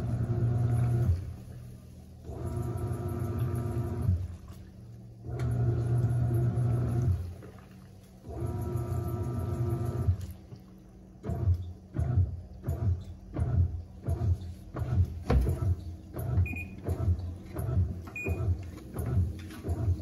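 Top-loading Panasonic washing machine agitating its load: the motor turns the pulsator in humming strokes of about a second and a half with short pauses between them. After about ten seconds it switches to quicker short strokes, about three every two seconds, with water sloshing in the foamy tub.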